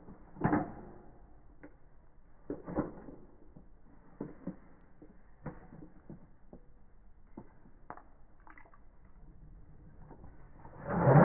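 Faint, scattered clicks and taps while a Beyblade spins in a plastic stadium. Near the end a much louder, dense handling noise starts as a hand brings a Beyblade launcher in over the stadium.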